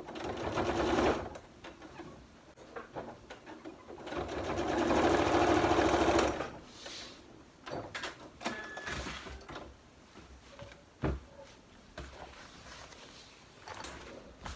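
Sewing machine stitching through denim in two runs: a short one of about a second at the start, then a longer one of about two seconds that builds up and stops suddenly. Light clicks and knocks from handling the fabric follow.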